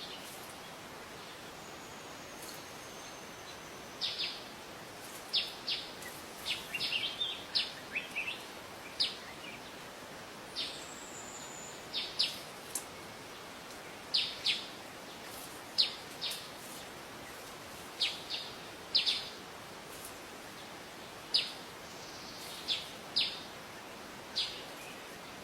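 A wild bird calling in short, sharp, high chirps at irregular intervals, over a steady hiss. The calls start about four seconds in and stop near the end.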